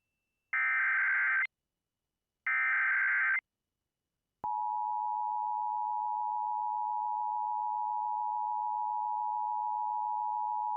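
Emergency Alert System tones: two short data bursts of the SAME header, about a second apart, then from about four seconds in the steady two-tone EAS attention signal (853 and 960 Hz). This is the signal that marks the start of a broadcast tornado warning.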